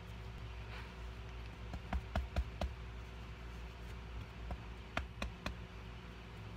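Handling noise: a few light taps and clicks in two small clusters, four about two seconds in and three about five seconds in, over a steady low hum.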